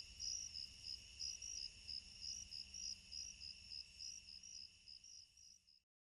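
Faint crickets chirping in a steady, even rhythm, a few chirps a second, over a continuous high trill; fades out near the end.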